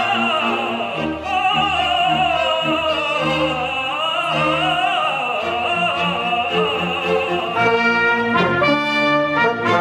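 Operatic tenor singing a late-18th-century aria with wide vibrato over a chamber orchestra. About three-quarters of the way through, the voice drops out and the orchestra plays short held chords.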